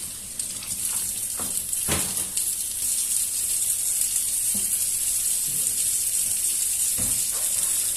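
Water running from a tap into a sink as a steady hiss that grows louder over the first couple of seconds, with a few short knocks.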